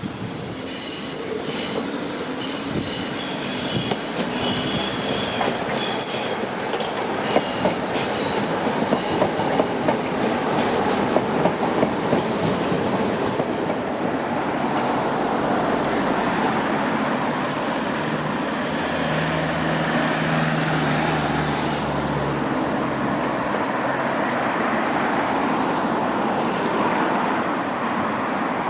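Electric passenger train running through the station. Its wheels clack over rail joints, with high-pitched whining tones over the first ten seconds or so. This settles into a steady rumble with a low hum about two-thirds of the way through.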